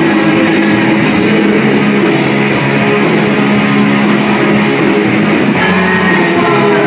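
Live rock band playing loud: electric guitars, bass and drums, heard from among the audience in a club.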